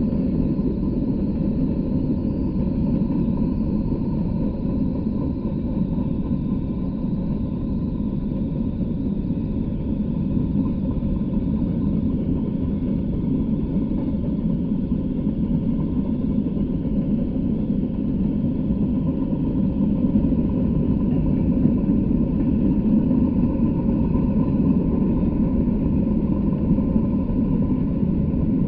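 Freight train of Norfolk Southern coal hopper cars rolling past: a steady low rumble of steel wheels on the rails.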